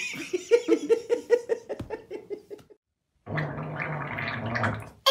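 A baby's long sputtering fart: a rapid train of short low pops, about four a second, for two and a half seconds. After a short gap comes a second, denser buzzing fart sound lasting about a second and a half.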